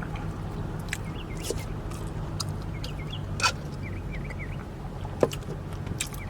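A person chewing and smacking fast-food breakfast up close, with a few sharp wet mouth clicks over a steady low hum.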